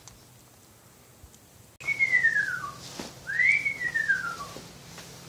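Bald eagle calling: two high, thin whistled notes about two seconds in, each sliding down in pitch, the second rising briefly before it falls.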